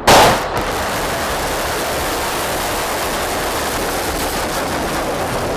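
RS-28 Sarmat liquid-propellant ICBM launching from its silo: a sharp blast right at the start, then the steady, loud rushing noise of the rocket's exhaust.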